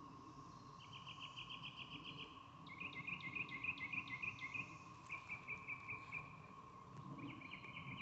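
Cicadas calling: several rapid pulsing calls, each lasting one to two seconds, over a steady faint drone.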